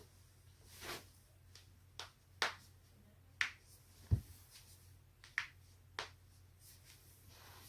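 Human neck and back joints cracking: a string of about seven sharp, separate pops over several seconds. The one about four seconds in is the loudest and has a deeper thud.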